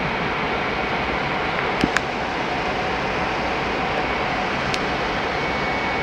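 Steady rushing noise of a Boeing 767 in flight, airflow and engines heard from inside the aircraft, with a few light clicks: two close together about two seconds in and another near five seconds.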